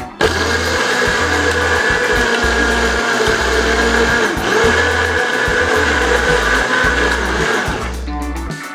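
Electric countertop blender running at a steady speed. It switches on abruptly a moment in and cuts off shortly before the end.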